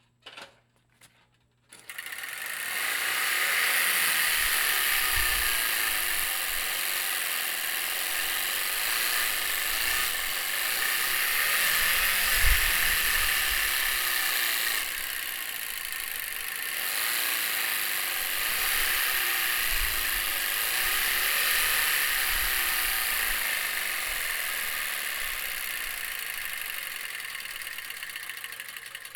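Playing cards held in chip clips flapping against a bicycle wheel's spokes, the card snapping off each spoke and the clip striking it metal on metal, making a fast, steady engine-like buzz set up to sound like an inline six. It starts about two seconds in and fades away near the end.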